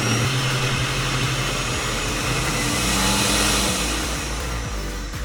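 Countertop blender motor running steadily at speed, blending a thick mix of cream cheese, heavy cream and milk into a dipping sauce.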